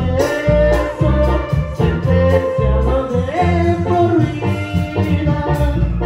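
Live band music through a PA: electronic keyboards playing a melody over a steady bass beat.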